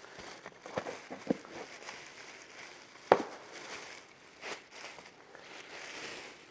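Rustling and crinkling of dresses being handled, with a few sharp clicks or knocks; the loudest comes about three seconds in.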